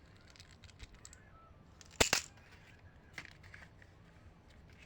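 Candy packaging being handled: faint scattered crinkles and light clicks, with one sharp double click about two seconds in.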